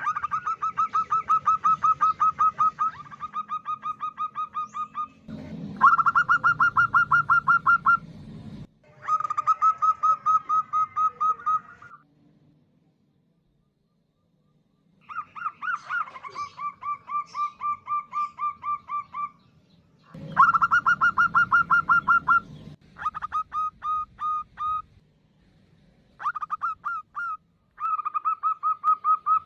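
Female zebra dove calling: rapid trains of short, clipped notes in bouts of two to three seconds, with a pause of about three seconds midway.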